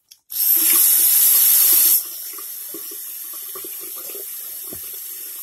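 Bathroom sink tap turned on hard about a third of a second in, water rushing loudly into the basin, then turned down about two seconds in to a steady, quieter stream.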